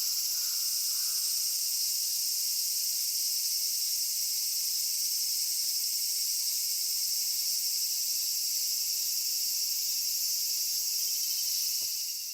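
Steady, high-pitched chorus of summer insects, a dense even drone that holds without pause and fades out near the end.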